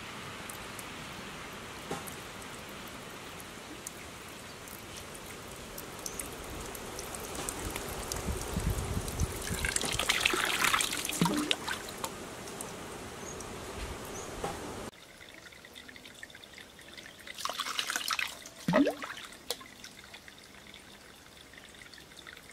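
Water trickling and splashing from a bamboo spout into an open bamboo pipe, a steady pour that grows louder around the middle, then drops suddenly quieter about fifteen seconds in, with one more louder splash a few seconds later.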